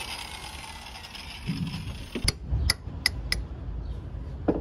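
Four quick, sharp mechanical clicks a little over two seconds in, then a single click near the end, over a low rumble.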